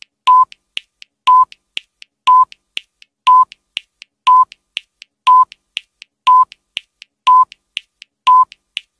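Countdown timer sound effect ticking down: a short beeping tick exactly once a second, with two fainter clicks between each.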